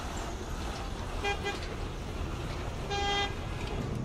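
Vehicle horn honking: two quick short toots about a second in, then one longer toot near the end, over a steady low rumble.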